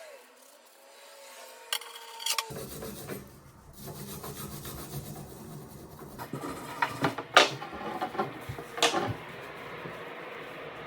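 Rubbing strokes worked by hand along the sword's metal, with several sharper, louder scrapes about seven to nine seconds in.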